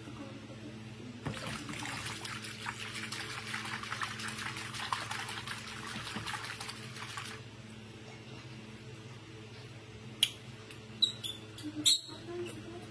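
Water splashed and swished by hand in a plastic basin for about six seconds, then stopping. A few sharp clicks or knocks near the end, which are the loudest sounds.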